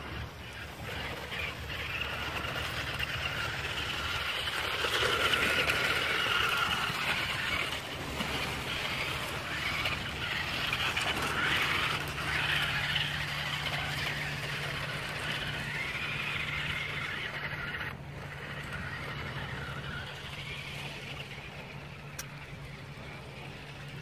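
Twin electric motors and gearbox of a toy 1:12 RC monster truck whining as it drives over rock. The whine swells louder and eases off as the throttle changes.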